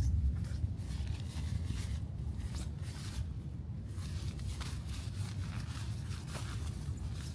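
Irregular rustling and short scraping sounds of camping gear being handled during tent setup, over a steady low rumble.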